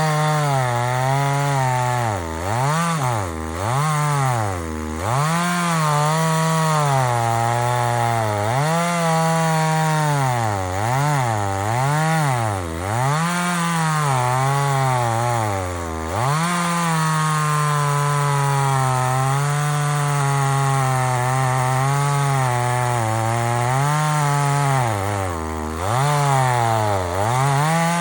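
Echo CS-3600 two-stroke chainsaw cutting wood. Its engine pitch repeatedly sags and climbs back as it bogs under load and revs up again. For several seconds in the second half it runs at a steadier high speed, then dips once more near the end.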